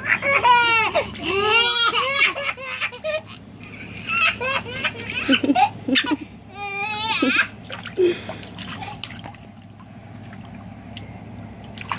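Babies laughing and babbling in short high-pitched bursts through the first half or so, with light splashing of water in a small paddling pool; quieter toward the end.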